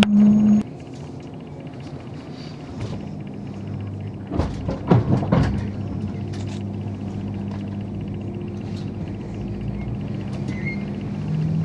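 Running sound inside a JR 485 series limited express car: a steady low rumble, with a quick cluster of clacks from the wheels about four to five seconds in. A loud low hum stops just after the start.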